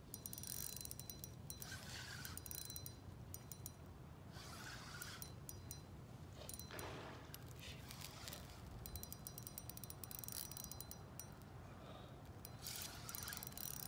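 A fishing reel being cranked in several short spells, its gears giving a fast ticking whir as the line is wound in.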